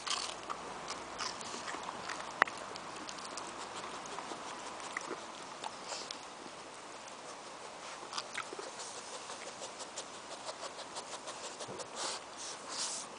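Small dogs moving about on a board and dirt floor: scattered light clicks and scuffs of paws and claws, with sniffing and chewing of a treat. There is one sharp click a couple of seconds in and a cluster of louder scuffs near the end.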